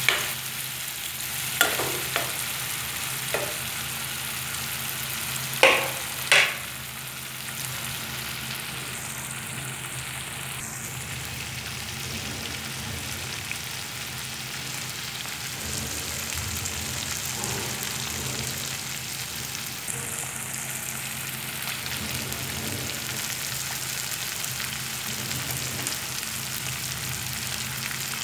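Cubes of milk cheese frying in an oily tomato gravy in a nonstick wok, a steady sizzle. A metal spoon stirs and knocks against the pan a few times in the first seven seconds, the loudest two about six seconds in.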